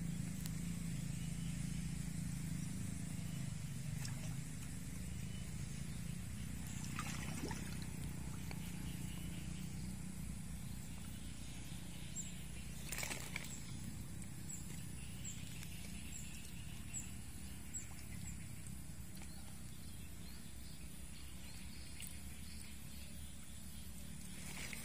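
Steady low outdoor rumble with a few soft splashes of pond water as a man wades and works his hands along the muddy bank, the clearest about halfway through; a few faint high chirps in the middle.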